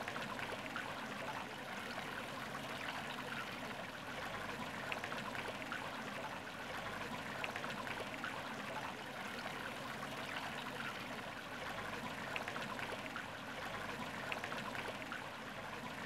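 Ornamental fountain with water splashing and trickling steadily into its basin, with many small drips and splashes.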